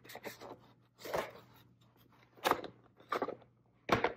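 A stiff fabric-covered lampshade panel rustling and crinkling as it is flexed and handled, with a few short, irregular crackles and clicks, the sharpest near the end.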